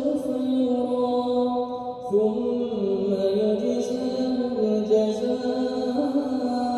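A man reciting the Quran in melodic chant (qira'at), holding long drawn-out notes that step down in pitch about two seconds in and rise again near the end.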